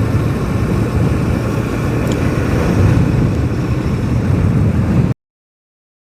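Steady wind rush and running noise of a TVS Apache 160 2V motorcycle ridden at speed. It cuts off to complete silence about five seconds in.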